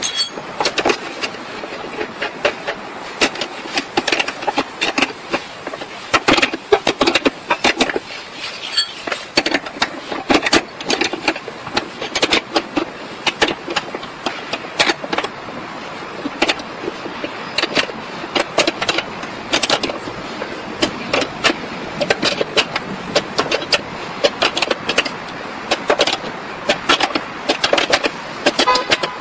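Quick, irregular metallic clicks and clinks of a hand socket wrench and bolts as the running board's mounting bolts are threaded in and tightened.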